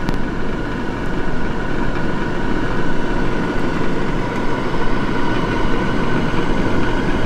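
Rosewill food dehydrator's fan running with a steady whirring noise and a faint hum, heard close up inside the dehydrator's trays.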